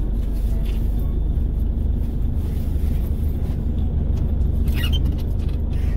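Steady low rumble of a car running, heard from inside the cabin, with one short faint higher sound about five seconds in.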